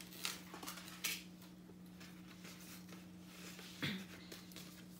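Faint rustles and light clicks of small packaging being handled, a necklace and a cardboard gift box, over a steady low hum.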